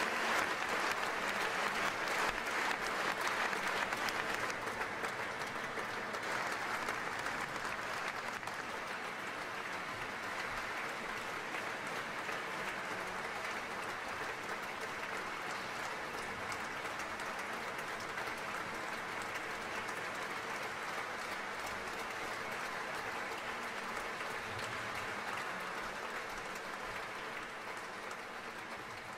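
Audience applauding steadily, strongest in the first several seconds, then easing off slightly and fading near the end.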